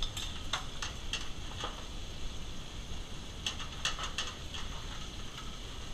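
Short metallic clicks and clinks of tongs and stainless steel pans being handled on an induction hob, in two loose clusters about three seconds apart, over a steady kitchen hiss.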